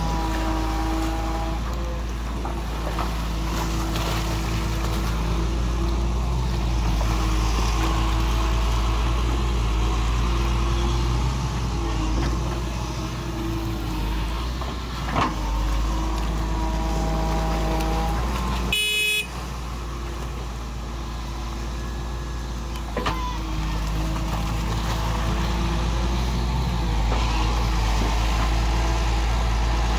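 Volvo EW145B wheeled excavator's diesel engine running as it digs, with its pitched tones coming and going as the boom and bucket work.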